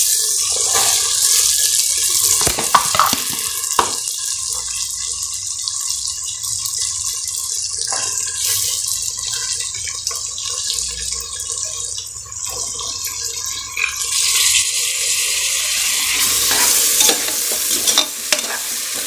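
Chopped carrots, beans and green peas sizzling in hot oil with sautéed onion and tomato in an open pressure cooker, a steady frying hiss with a few sharp clicks from the vegetables and utensil in the first half. From about fourteen seconds in a ladle stirs the vegetables and the sizzle grows fuller and louder.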